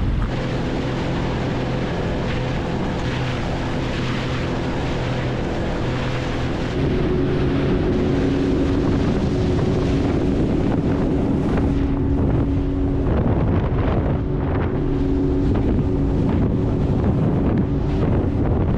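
Sea-Doo FishPro Trophy jet ski engine running at low speed. About seven seconds in it runs at a higher, louder pitch as the ski speeds up. Wind buffets the microphone, and water rushes and sprays along the hull.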